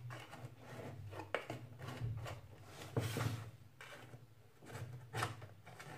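A flat blade scraping around the inside walls of a metal loaf pan in short, irregular strokes, loosening a baked cake where it sticks to the sides.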